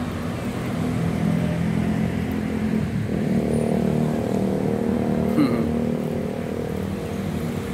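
Motor vehicle engines running steadily nearby, a steady hum with a second engine joining about three seconds in. A short click comes a little past halfway.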